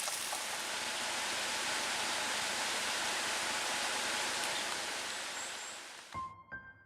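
Steady rushing water of a waterfall, fading out near the end, where a few soft piano notes begin.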